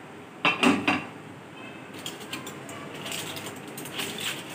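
A brief metallic clatter, then light crinkling and rustling of aluminium foil as a foil cover is handled and peeled back off a steel cooking pot.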